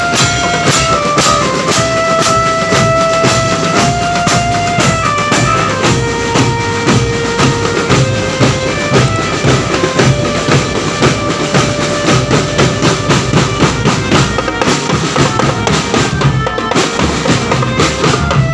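Music with a steady, fast drum beat of bass and snare drums under a melody of held notes that step up and down in pitch.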